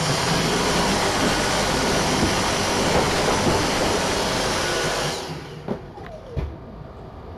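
A small vacuum cleaner running steadily and loudly, then switched off about five seconds in.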